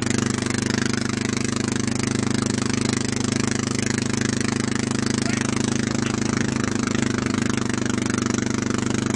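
Snowmobile engine running at a steady, unchanging pitch while towing a rider on a sled.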